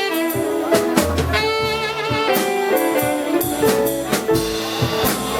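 Small jazz band playing an instrumental passage: horns hold notes with vibrato over a drum kit keeping time with cymbal strokes.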